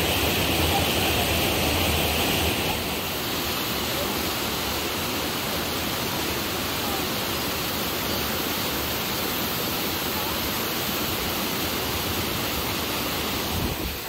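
Mountain stream rushing over granite boulders, a steady, even rush of water. About three seconds in it drops a little and loses some of its hiss.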